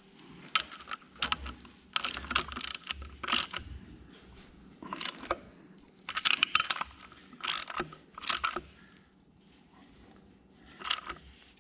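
Socket ratchet clicking in short bursts as bolts are run down and snugged on an engine block.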